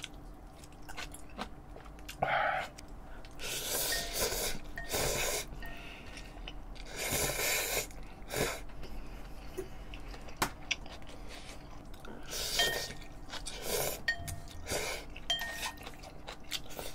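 A person eating ramyeon noodles and kimchi: several short slurps of noodles, with chewing and light clicks of wooden chopsticks between them.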